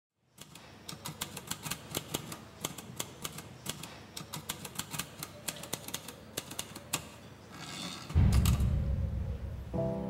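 Manual typewriter keys clacking in a quick, irregular run for about seven seconds. About eight seconds in, a rising whoosh ends in a loud, deep boom, the loudest sound here. Music with held tones starts near the end.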